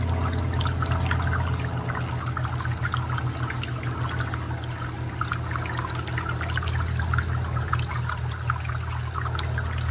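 Garden fountain water trickling and splashing steadily, with a dense patter of drops over a constant low hum.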